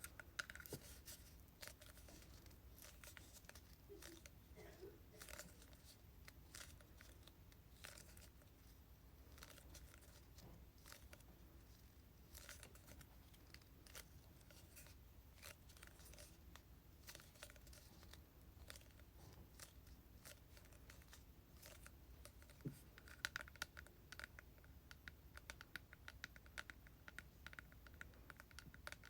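Fingers tapping on plastic hair-product bottles and containers: many soft, separate taps, coming quicker and brighter in the last few seconds.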